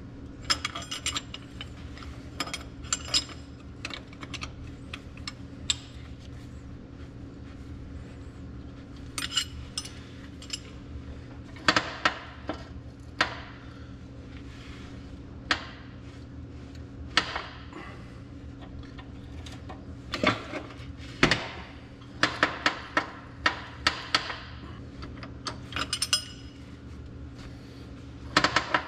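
Metal hand tools, a wrench, a ratchet and a hex key, clinking and clicking against the tractor's brake fittings at irregular moments, with quick runs of clicks later on. A steady low hum sits underneath.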